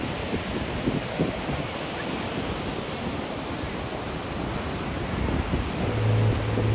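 Ocean surf washing onto the beach, with wind buffeting the microphone. Near the end a steady low hum starts up.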